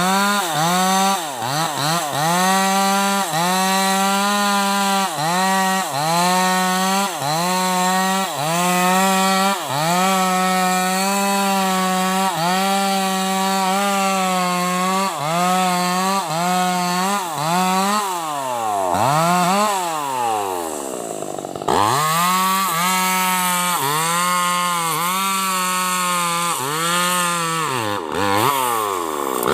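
Bosco 5880 two-stroke chainsaw running at high revs while cutting sengon wood, its pitch dipping briefly again and again. About two-thirds of the way through, the throttle is let off and the revs fall and climb in a few long sweeps before it goes back to full speed.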